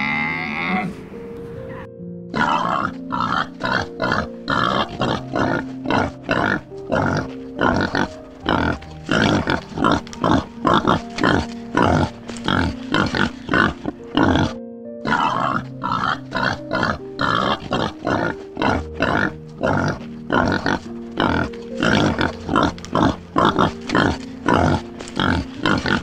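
A fast run of short animal grunts, several a second, over background music with held notes; the grunting breaks off briefly a little past the middle.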